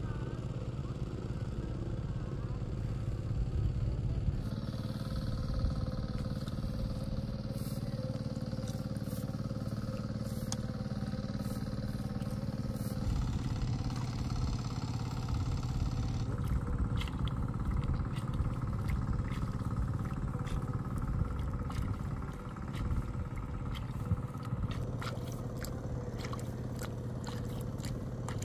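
An engine running steadily, its note shifting a few times, with scattered clicks and rattles in the second half.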